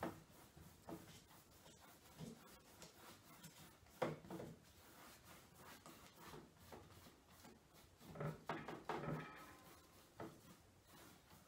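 Faint scrubbing of a paintbrush across a stretched canvas as acrylic paint is blended, with a few soft knocks.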